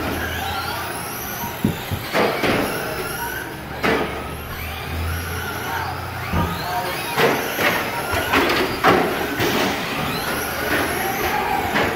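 Several stock Traxxas Slash electric RC short-course trucks racing, their motor whine rising and falling as they speed up and slow down, with repeated sharp knocks from the trucks hitting each other and the track boards.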